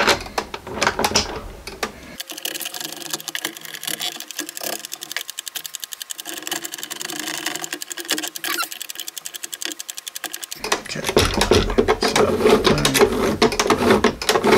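Rapid, even mechanical clicking from a 3D-printed plastic clock movement, lasting several seconds, with knocks of plastic parts being handled at the start and a louder stretch of handling near the end.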